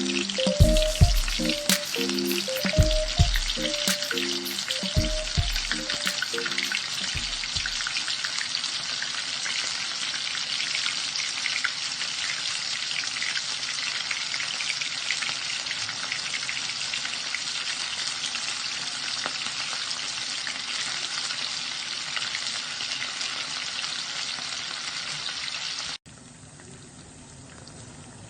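Chicken pieces deep-frying in very hot oil: a dense, steady crackling sizzle. Background music plays under it for the first several seconds. Near the end the sizzle cuts off suddenly to a much quieter hiss.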